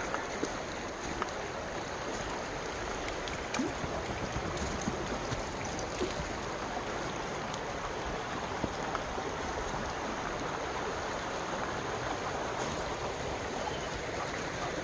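Steady rush of a creek running high after flooding rains, with a few faint clicks.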